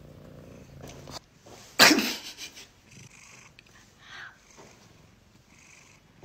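Domestic cat purring low and steady, stopping about a second in. About two seconds in comes one short, loud, sudden sound that dies away quickly, followed by a few fainter short sounds.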